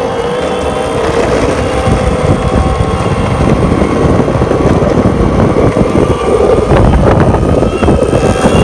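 Boosted Board Stealth electric skateboard running, a loud steady rumble of the wheels with a whine laid over it. This is the noise the owner suspects comes from worn wheel bearings.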